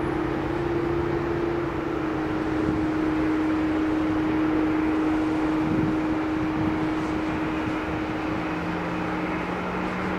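Airbus A350-900's Rolls-Royce Trent XWB turbofan engines at idle thrust while the airliner taxis: a steady rushing jet noise with a constant hum, joined by a second, lower hum near the end.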